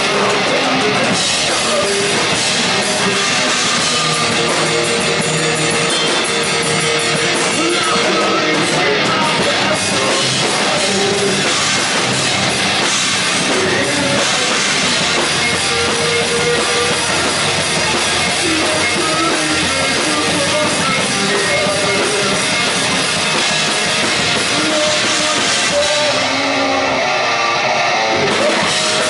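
A rock band playing live: electric guitar over a full drum kit, loud and continuous with no breaks.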